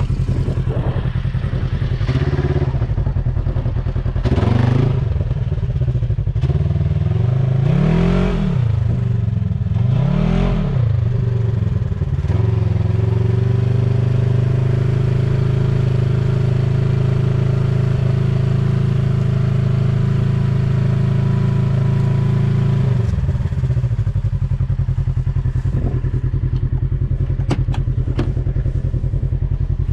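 Polaris RZR 1000 UTV's twin-cylinder engine running as it is driven in a circle: the revs rise and fall a few times, then hold steady at a higher pitch for about ten seconds before dropping back to a lower, steady note near the end.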